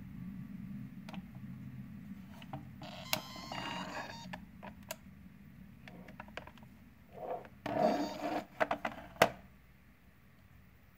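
White plastic housing of a 360° fisheye IP camera being handled, turned over and set down: scattered clicks, two short scraping bursts and a sharp knock near the end, over a low hum that fades away in the first half.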